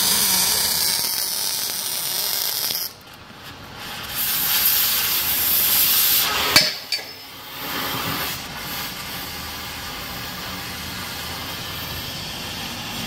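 Cutting torch hissing as it cuts through a car's exhaust pipe. The sound drops away for about a second near three seconds in, there is one sharp pop about six and a half seconds in, and then a steady, quieter hiss.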